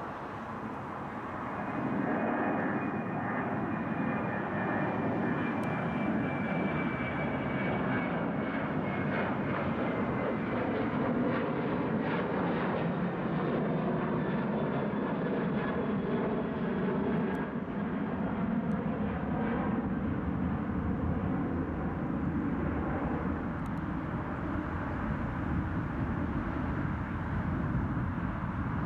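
Boeing 737-800's CFM56 turbofan engines at climb thrust as the jet passes overhead after takeoff: a steady jet noise that grows louder about two seconds in, with a high whine slowly falling in pitch over the next several seconds.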